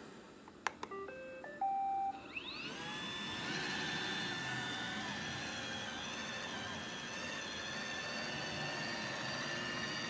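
iRobot Roomba robot vacuum giving a click and a short run of stepped beeps as it starts a cleaning cycle. Its motors then spin up with a rising whine and run steadily.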